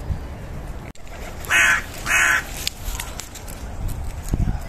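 A crow cawing twice, two short caws about half a second apart, a little over a second in, over a low outdoor rumble.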